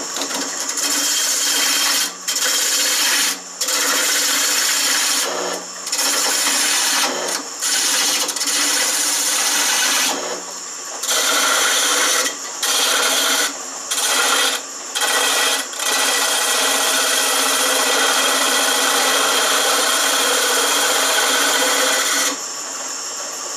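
Shopsmith 520 lathe running while a gouge cuts a spinning hardwood spindle: a loud scraping, rasping cut that breaks off briefly again and again, then runs on without a break for a long stretch. Just before the end the cut stops and only the quieter running of the machine remains. The wood is very hard and the blank keeps losing its grip on the drive, so the work stalls, though the lathe itself does not.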